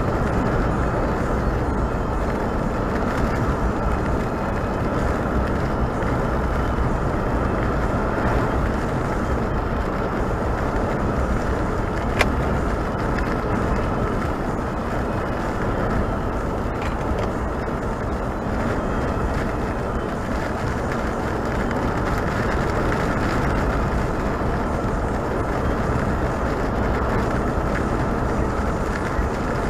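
Steady road noise of a car driving at speed: tyres and engine running evenly, with a single sharp click about twelve seconds in.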